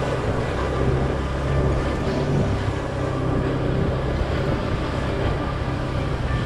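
Motorcycle engine running steadily while riding, with a constant low hum and road and wind noise.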